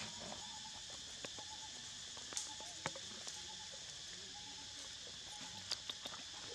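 Steady insect chorus buzzing in several high pitch bands, with a few short sharp clicks scattered through it, the loudest about three seconds in.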